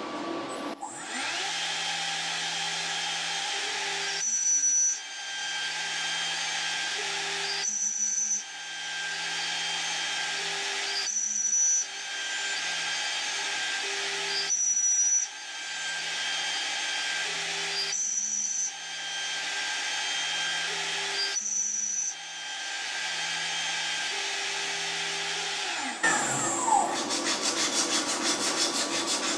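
CNC spindle with an 1/8-inch end mill cutting slots into a wooden billet on a fourth-axis setup. The cutting whine changes in a regular cycle about every three and a half seconds as each slot is cut and the piece is indexed. About 26 seconds in the spindle stops with a falling whine, followed by a fast rattling noise.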